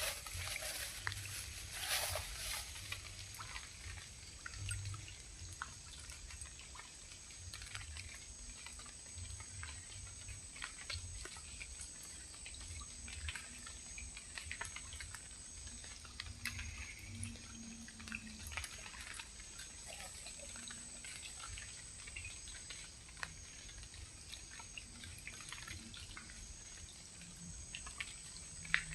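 Faint water trickling and dripping, with scattered small clicks and a steady high-pitched tone in the background.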